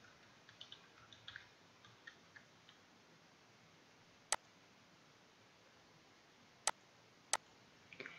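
Faint computer keyboard typing over the first few seconds, then three sharp mouse clicks, the last two less than a second apart.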